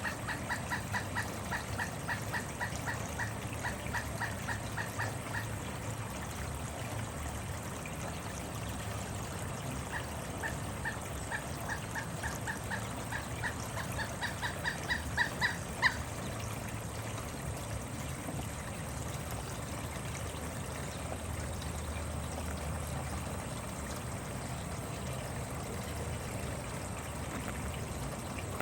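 Pileated woodpecker calling: a long series of loud, evenly spaced 'wuk' notes, about four or five a second, then a pause and a second series that speeds up and grows louder to a final strongest note. For the rest of the time there is only a steady background hiss.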